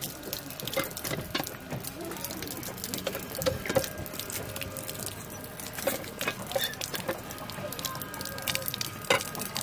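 Water from a cast-iron hand pump running out of the spout and splashing into a brick basin, with scattered small clicks.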